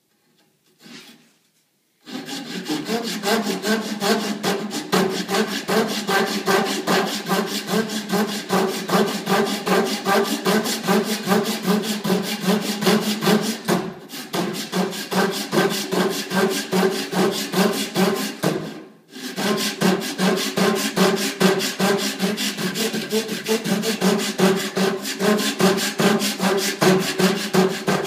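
Japanese pull saw ripping lengthwise down a wooden dowel, with quick, even, rasping strokes that start about two seconds in and pause briefly twice.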